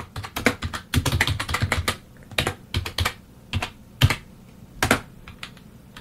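Typing on a computer keyboard: a quick run of keystrokes for about two seconds, then slower single key presses.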